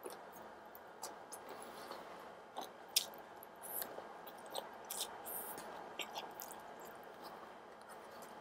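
Close-miked mouth sounds of eating noodles: wet chewing with many small clicks, and a few short slurps as strands are drawn in.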